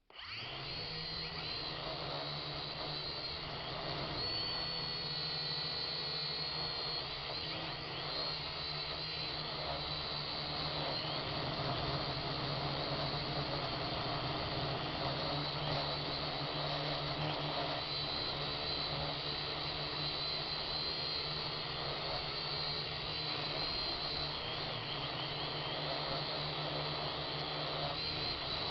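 Syma X7 quadcopter's electric motors and propellers whirring steadily with a high whine, heard close up, as the underpowered quadcopter is flown in gusty wind.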